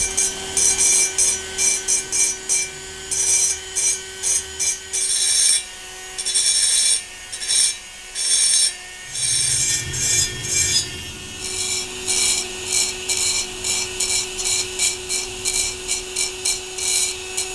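Handheld rotary grinder with a small bit grinding casting flash out of the ports of an aluminium cylinder block. The motor whines steadily while the bit scrapes the metal in many short, uneven strokes.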